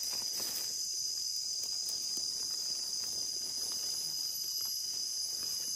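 Steady high-pitched chorus of insects, with faint rustling of dry leaves as the mushroom is handled.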